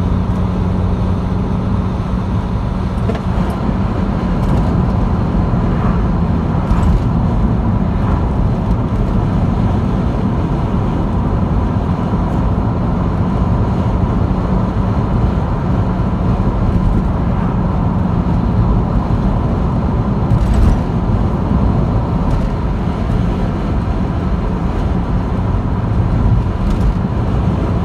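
Steady road and engine noise inside a car's cabin with the windows shut, while driving at road speed. It is mostly a low rumble from the tyres and engine, with a couple of light bumps.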